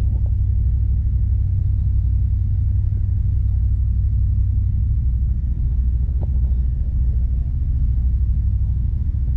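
A steady low rumble, with a couple of faint clicks about six seconds apart.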